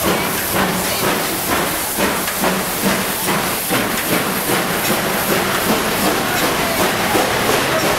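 Steam locomotive DSB E 991 starting its train away, its exhaust chuffing about twice a second over a steady hiss of steam as the engine and coaches roll past close by.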